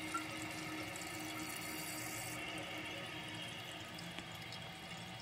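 Toilet tank refilling after a flush: water running steadily from the fill valve into the tank.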